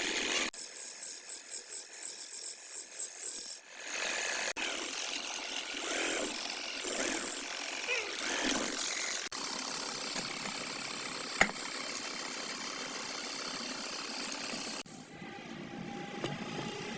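Wood lathe running with a turning tool cutting into the spinning wood, a rough, hissing scrape. The sound changes abruptly several times, one stretch pulsing quickly. A single sharp click comes about eleven and a half seconds in.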